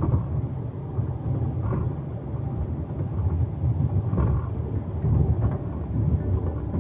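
Steady low rumble of a 15-inch-gauge railway carriage running along the line.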